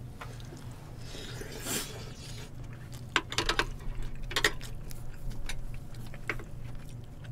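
Metal spoons and chopsticks clicking and clinking against bowls and dishes while eating: a brief swish about two seconds in, then a string of light clicks between about three and six and a half seconds, over a low steady hum.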